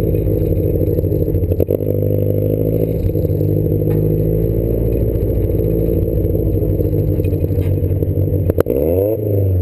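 Triumph sports car engine pulling hard through the gears, heard from inside the cabin. There is a shift about a second and a half in, and a sharp click near the end, after which the engine note changes pitch.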